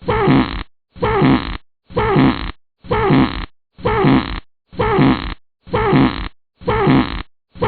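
A fart sound effect played on a loop: the same short fart, falling in pitch, repeats about once a second with a brief silence between each.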